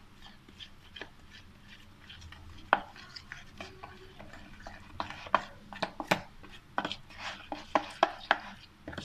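Metal spoon stirring flour and water into a paste in a plastic bowl: scattered taps and scrapes of the spoon against the bowl, coming quicker and louder about halfway through.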